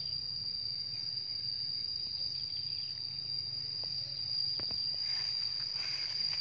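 Insects calling in one steady, unbroken high-pitched drone, with a brief rustling noise near the end.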